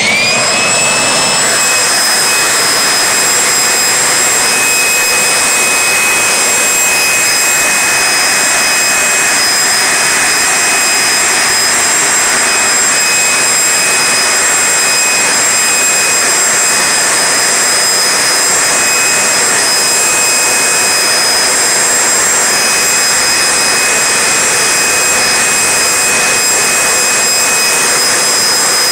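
Corded electric leaf blower running at full speed: a loud, steady high-pitched whine over a rush of air, the whine rising as the motor spins up at the start.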